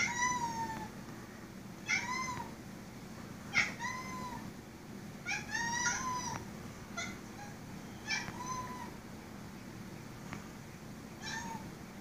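Siamese cat meowing at a spider on the ceiling: a string of about eight short meows, each rising then falling in pitch, with gaps of one to three seconds between them.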